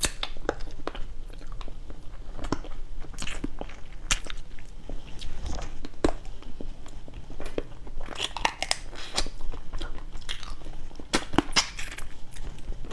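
Thin, crisp boiled crab shell cracked apart by hand and the crab meat chewed, close to the microphone: a string of sharp crunches and clicks, thickest about eight to nine and a half seconds in and again around eleven seconds in.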